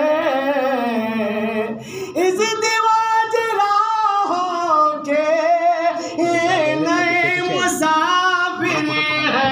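A man singing an Urdu wedding prayer song unaccompanied, drawing the words out into long, wavering notes that slide up and down. There is a short dip about two seconds in before the melody picks up again.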